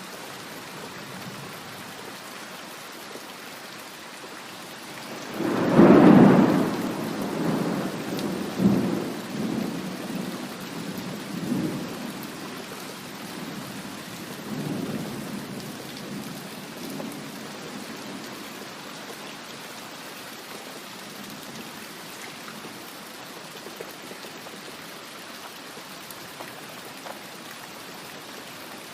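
Steady rain falling, with a thunderclap about five seconds in that cracks loudly and then rolls and rumbles in several diminishing swells for about ten seconds before the rain is left alone.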